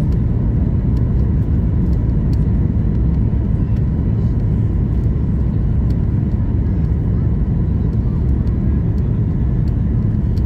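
Steady, loud rumble of a Boeing 737 MAX 8 airliner on approach, heard inside the passenger cabin: engine and airflow noise with a faint steady tone above it.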